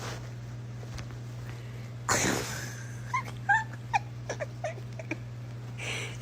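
A pet's short, high whimpering squeaks, several in quick succession, over a steady low hum, with a brief rustle before them.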